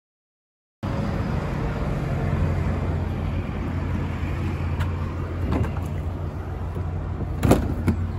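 A motor vehicle running, with a steady low rumble of engine and road noise that cuts in abruptly about a second in. A few sharp knocks come near the end.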